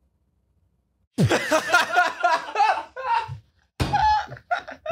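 Men laughing in two loud bursts: the first starts suddenly about a second in, the second comes near the end.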